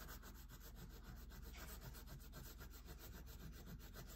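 Faint rubbing of an oil pastel on paper, worked in small quick circles to colour and blend, each stroke scratching lightly across the sheet several times a second.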